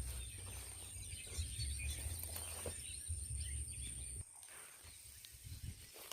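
Faint outdoor ambience: a low rumble of wind on the microphone and a steady, thin, high-pitched insect drone. Both cut off about four seconds in, leaving quieter ambience with a few faint rustles.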